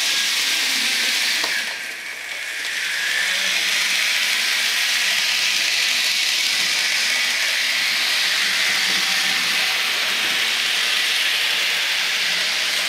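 Steady loud hiss like escaping steam, with a click and a brief dip about two seconds in, while a model diesel locomotive runs on the layout.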